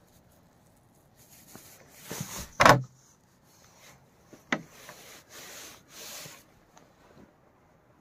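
Someone opening a dugout's door and stepping inside: rubbing and scraping, a loud knock about a third of the way in, a sharp click about halfway, then more rustling.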